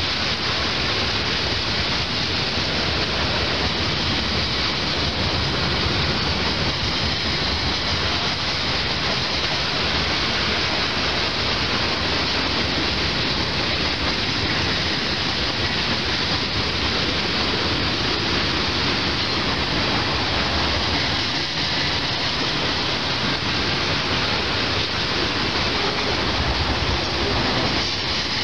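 Union Pacific freight cars rolling past on a bridge: a steady, continuous rushing rumble of steel wheels on rails.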